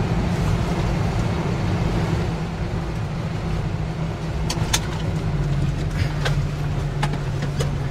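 Isuzu NPS 75-155 4x4 truck's turbo-diesel engine running steadily while driving, with tyre and road noise and a few sharp knocks or rattles about halfway through.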